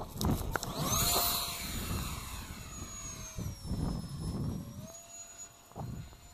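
Electric ducted fan of an E-flite Habu SS jet spooling up with a rising whine about a second in, then a loud rushing whine as the jet takes off and climbs away. The pitch dips and comes back up later with the throttle. Gusty wind buffets the microphone.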